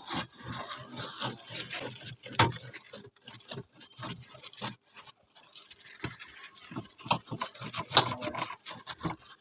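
Scrubbing the plastic inside of a refrigerator with a soapy plastic bag: irregular short rubbing strokes, with a quieter lull about halfway through.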